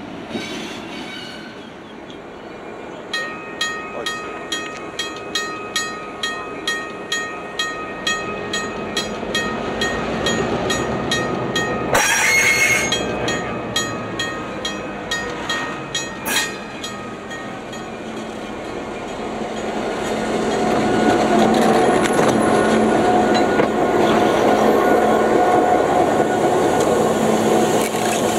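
Diesel locomotive approaching and passing close. A bell rings about twice a second for several seconds, with a loud rush of noise about twelve seconds in. The engine's running sound then builds to its loudest as the locomotive and its wheels roll right past.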